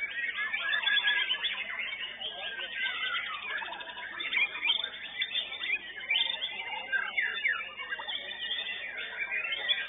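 White-rumped shama (murai batu) singing a rapid, varied stream of whistles, chirps and sliding notes.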